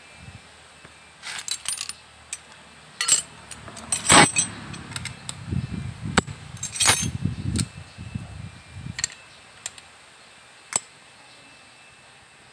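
Metal clinks and knocks of tools and alternator parts being handled on a workbench, a dozen or so separate strikes, the loudest about four seconds in, with duller handling noise between about five and nine seconds.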